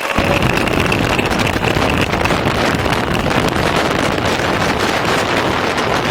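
Harley-Davidson Fat Bob's V-twin engine running under way, mixed with heavy wind noise on the microphone.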